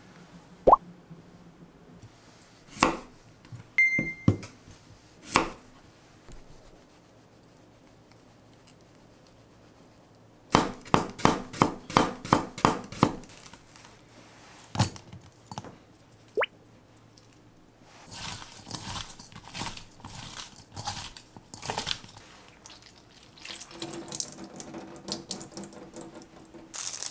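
A steel kitchen knife slicing cucumber on a wooden cutting board, a quick run of about a dozen chops after a few scattered knocks on the board. Near the end, hands squeeze the salted cucumber slices and water drips into a stainless steel bowl.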